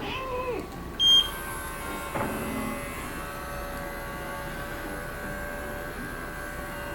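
A short, loud electronic beep about a second in, followed by a click and then a steady electrical hum with a whine as a household appliance starts running.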